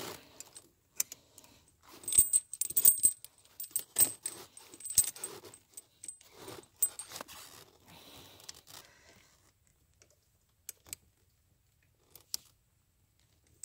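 Steel links of a Trygg studded tractor tire chain and its lever fastener clinking and rattling as the outside connector is hooked up by hand. The clinks come thick for the first several seconds, then thin out to a few single clicks.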